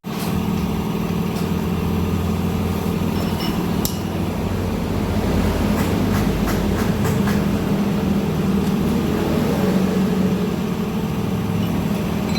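An engine running steadily at a low, even speed, with a few light clicks over it.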